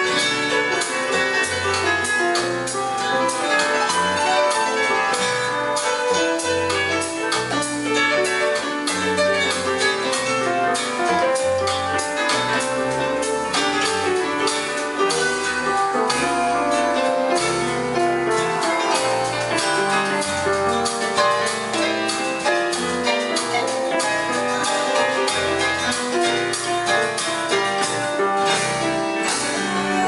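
Electronic keyboard and stage piano played with both hands over a band backing of bass and drums, at a steady beat.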